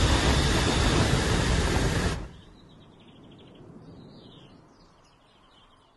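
Loud, steady rushing of a flamethrower's flame jet for about two seconds, cutting off abruptly. Then faint outdoor ambience with a few high bird chirps.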